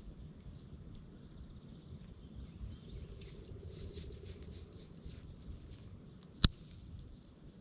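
Small fire of pencil-thin sticks crackling with fine pops, then one loud sharp snap about six and a half seconds in. A bird calls with a short rising note about two seconds in.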